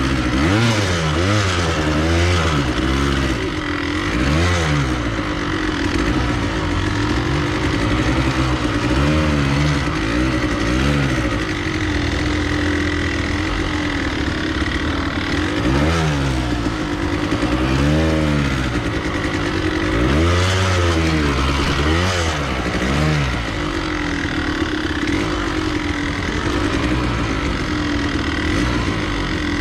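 Japanese enduro motorcycle's engine revving up and down over and over as it is ridden along a rough forest trail, steadier in a few stretches, with chassis clatter underneath.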